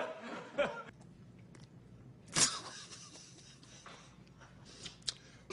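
Stifled laughter: soft chuckling in the first second, then one short breathy burst of a laugh about two and a half seconds in, over quiet room tone.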